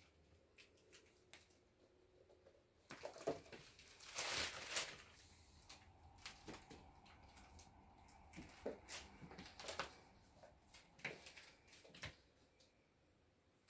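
Kittens scrabbling and climbing over a fabric cat bed make faint scattered taps and rustles of paws and claws on fabric. A louder scratchy rustle comes about four seconds in.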